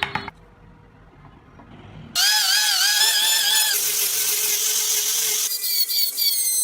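A high-speed rotary carving tool starts suddenly about two seconds in with a loud, high whine whose pitch wavers up and down, then runs on as a steadier whine.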